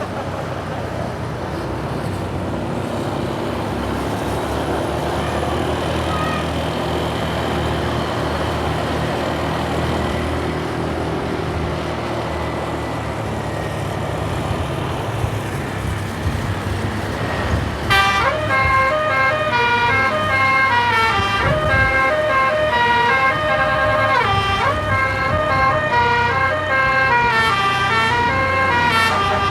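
Vehicle engine running amid road noise, then about two-thirds of the way in a bus's 36-note telolet basuri multi-trumpet air horn starts playing a fast melody of quickly changing notes.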